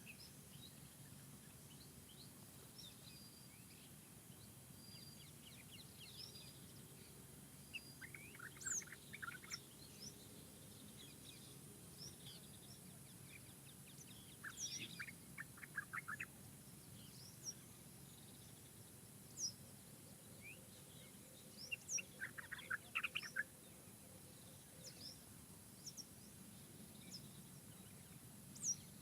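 Songbirds chirping sporadically, short high chirps with three bursts of rapid trilling spread through, over a faint steady low background rumble of forest ambience.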